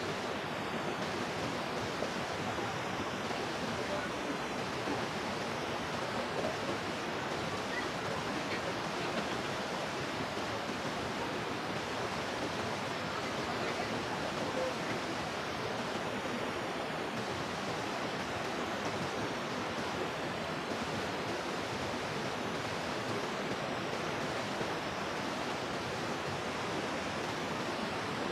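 Steady rushing water, an even unbroken roar without pauses or distinct splashes.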